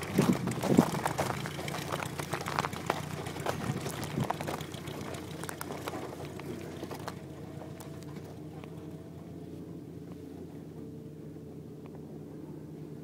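1946 Aeronca Champ's light-aircraft engine and propeller running steadily as the ski-equipped plane moves away across the ice, its drone fading with distance. Loud gusts of wind buffet the microphone during the first couple of seconds.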